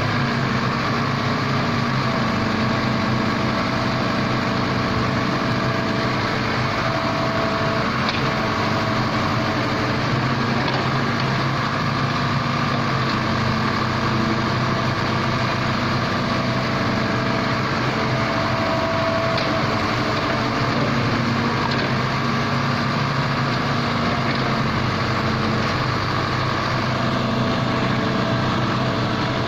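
Wheeled excavator's engine running steadily while it works, with a whining tone that comes and goes over the engine note.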